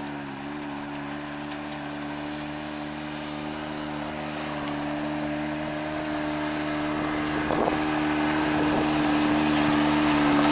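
Off-road side-by-side engine idling steadily while another machine's engine grows steadily louder as it approaches.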